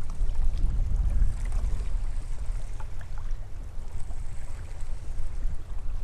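Wind buffeting the microphone in a steady low rumble, with choppy water lapping against a small drifting skiff, and a few faint light ticks.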